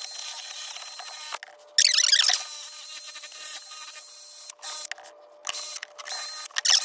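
Drill spinning a wire wheel brush against a rusty steel trowel to scrub off the rust: a steady motor whine with scratchy grinding that comes and goes in spurts. The grinding is loudest about two seconds in and again near the end.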